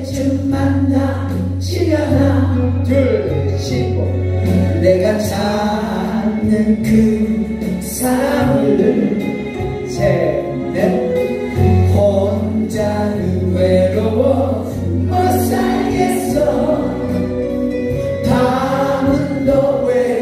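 A group of voices singing together over a song's backing track with a steady bass line.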